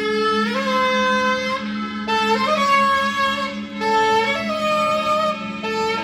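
Solo saxophone playing a slow line of held notes that step up and down in pitch, over a steady low drone.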